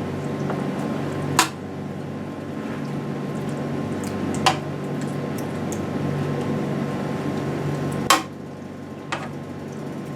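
A utensil knocking against cookware four times, a few seconds apart, with soft wet scraping of sauce, over a steady low hum.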